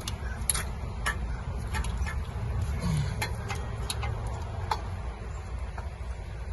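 Scattered light clicks and taps from hand tools and engine parts being worked during intake manifold fitting, at uneven spacing, over a steady low rumble.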